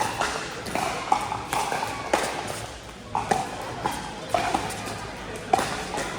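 Pickleball paddles hitting a plastic ball during rallies: a run of sharp, hollow pops at an uneven pace, about one a second and sometimes closer together, each ringing briefly.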